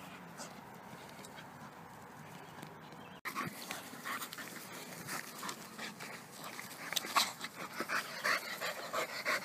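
Pit bull terrier panting close to the microphone in short, irregular breaths. It is faint for the first three seconds, then starts abruptly and grows louder toward the end.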